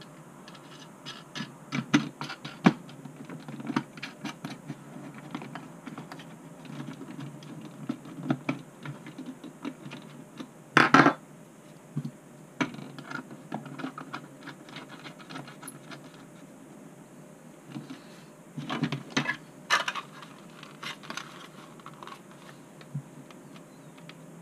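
Hands handling the plastic canopy and frame of a racing quad on a desk: a run of small clicks and taps, with louder clattering knocks about eleven seconds in and again around nineteen to twenty seconds.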